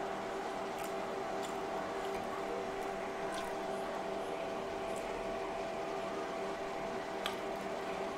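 A steady low electrical hum in the room, with a few faint small clicks as a spoon dips food into a bowl of sauce.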